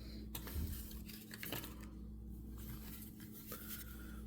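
Faint handling sounds of plastic toy packaging: a few light clicks and soft rustles as a blind-box capsule is opened and the blind bags inside are handled, over a steady low hum.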